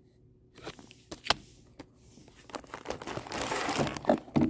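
A few sharp clicks as a cardboard box is handled. Then, from about two and a half seconds in, plastic packaging crinkles and rustles while items are pulled out of it.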